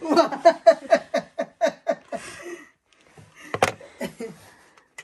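A person laughing in a quick run of short 'ha-ha' bursts for about two seconds, then a single sharp click about three and a half seconds in.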